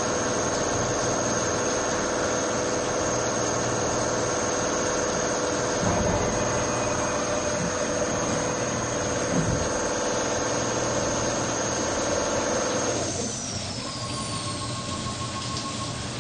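CNC machining center cutting the main bearing bores in a billet aluminium engine block under flood coolant: a steady machine din of spindle, cutter and coolant spray with a high steady whine. About 13 seconds in, the high whine slides down in pitch and the sound drops a little, leaving a steady lower tone.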